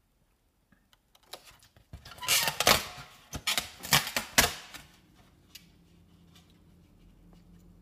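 Foam takeout clamshell and its paper liner being handled as the lid is pushed back, giving a run of sharp crackles and creaks for a couple of seconds about two seconds in.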